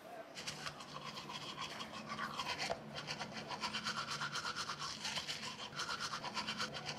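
Manual toothbrush scrubbing teeth in quick, even back-and-forth strokes, several a second. It starts about half a second in.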